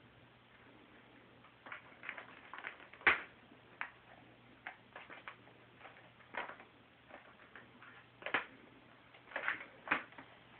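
A cat's claws and paws clicking and scratching irregularly on a chair back as she scrambles around chasing her tail, with the loudest click about three seconds in.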